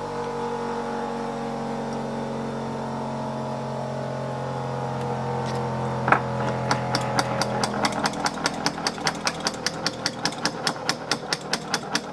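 A steady mechanical hum. About six seconds in come a sharp click and then quick, even clicking, about five clicks a second, while the hum fades.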